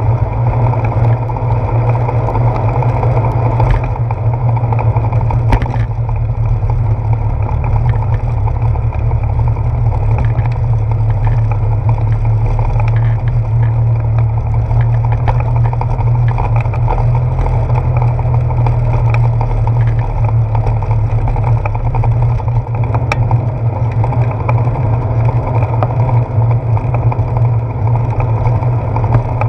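Steady low rumble of wind and road vibration picked up by a handlebar-mounted GoPro Hero 4 on a moving bicycle, with a few faint ticks.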